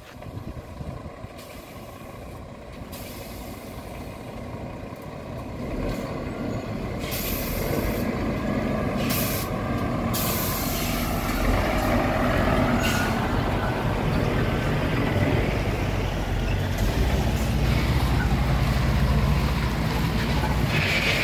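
Scania truck's diesel engine pulling a loaded 30-metre grain road train, growing louder as it approaches and then running steadily. Several short hisses of air brakes come in around the middle.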